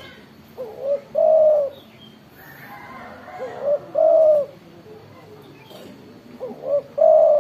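Spotted dove cooing: three phrases about three seconds apart, each two short rising notes and then a longer held note.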